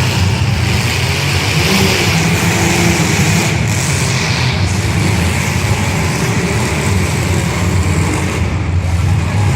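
Loud, steady engine noise from demolition derby cars running, a deep rumble with no distinct crashes.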